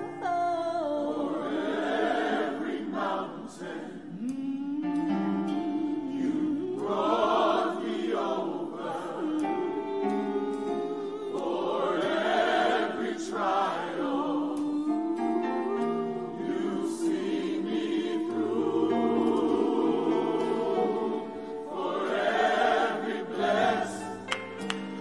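Gospel choir singing, with a woman soloist leading at the microphone.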